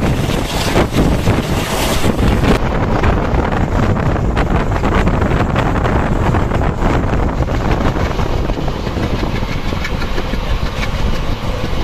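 Diesel passenger train running, heard from inside a coach: steady engine noise from the power unit in the next coach together with a rapid clatter of wheels on the rails. A high rushing hiss, like wind on the microphone, drops away about two and a half seconds in.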